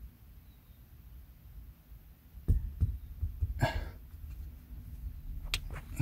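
Handling noise from a hand pressing a dash cam onto its adhesive mount against the windshield glass: low rubbing and bumping throughout, a sharp knock about two and a half seconds in, a brief noisy burst a second later, and a few light clicks near the end.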